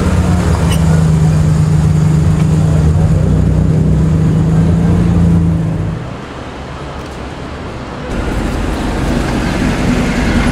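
A classic Jaguar XK roadster's straight-six engine running steadily at low revs as the car rolls past, falling away after about six seconds. Near the end a Porsche 356 A Speedster's flat-four grows louder.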